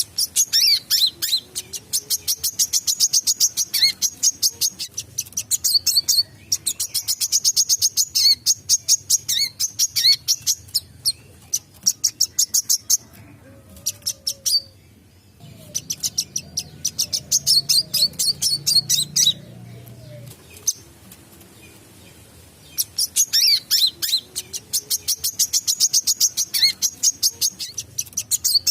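A wiceh sunbird singing in long, fast bouts of high, rapid ticking and chattering notes, broken by short pauses.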